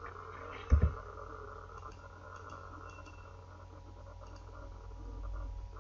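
Faint clicks of a computer mouse and keyboard over a steady low hum, with one louder low thump just under a second in.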